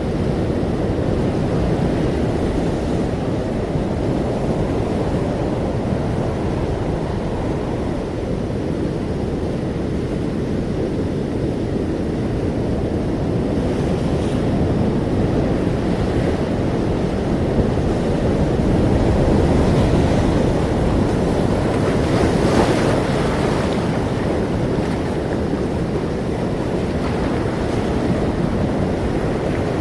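Ocean surf: a continuous low rush of waves with wind, swelling a little about two-thirds through as a larger wave washes in.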